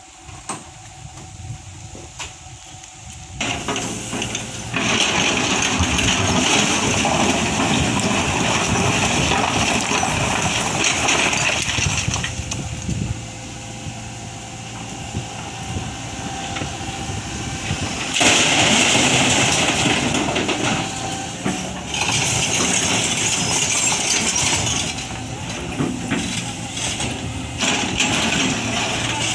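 Tata Hitachi ZAXIS 120H excavator's turbocharged diesel engine running under load, with long loud stretches of scraping and rattling stone as it loads a truck. The sound is quieter for the first few seconds, then the heavy scraping comes in three long spells.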